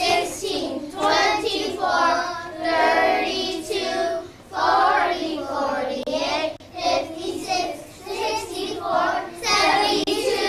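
A class of young children singing a times-table counting song together, in unison.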